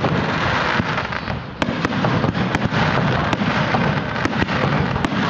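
Aerial fireworks bursting in quick succession: a dense, continuous crackle with many sharp bangs.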